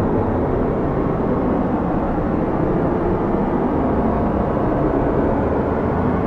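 Strong snowstorm wind blowing steadily: an even, low rushing noise with no single gust standing out.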